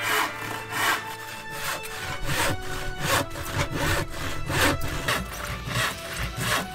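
Hand saw cutting through wood in quick back-and-forth strokes, about two to three a second, with background music underneath.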